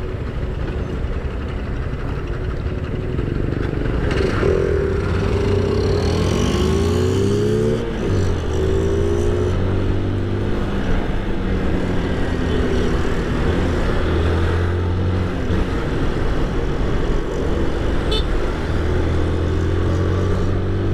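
Honda CG 160 Titan's single-cylinder four-stroke engine pulling away from a stop and accelerating through the gears: its pitch climbs, drops at a shift about eight seconds in, then settles into steady running at cruising speed with a few more shifts.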